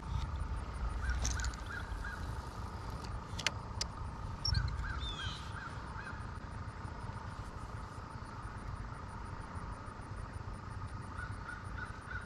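Crows cawing in three bouts of four or five quick calls: about a second in, around four and a half seconds in, and near the end.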